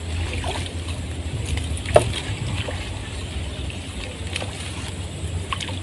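Water sloshing and splashing around a wading angler as he works a hooked fish into a landing net, with one short, sharper sound about two seconds in.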